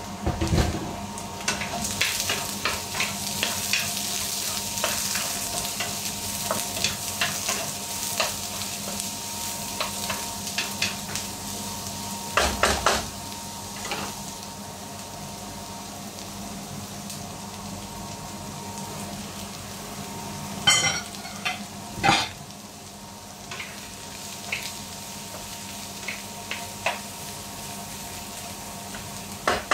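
Sponge gourd and mushrooms sizzling in oil in a nonstick frying pan, stirred and scraped with a wooden spatula. The sizzle is strongest in the first half, and there are three louder knocks against the pan: one about halfway, then two close together later on.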